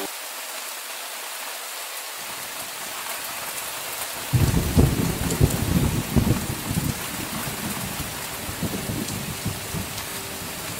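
Steady rain with a roll of thunder: a low rumble creeps in about two seconds in, swells into a loud, uneven roll about four seconds in and dies away a few seconds later.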